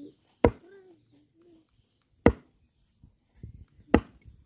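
A heavy curved cleaver chopping mutton on a wooden tree-stump chopping block: three sharp chops, each about two seconds after the last, with a few lighter knocks just before the third.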